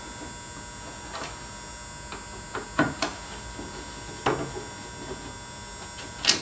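Hand screwdriver turning out small Phillips screws from a car's headlight cover: a handful of separate light clicks, spaced irregularly, over a steady faint hum.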